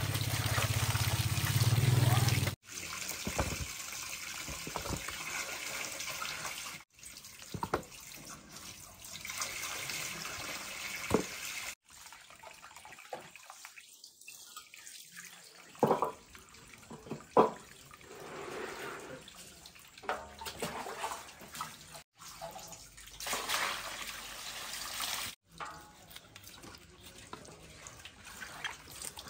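Running water, splashing and trickling, with a few sharp knocks of handling about sixteen and seventeen seconds in. It comes in several short shots cut together, with a low hum under the first couple of seconds.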